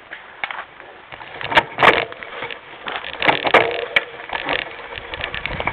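Mountain bike rattling as it rides over a rough forest trail, picked up by a camera mounted on the handlebar: irregular clatter and clicks from the bike, with a few sharp knocks about a second and a half in and again around three to four seconds in.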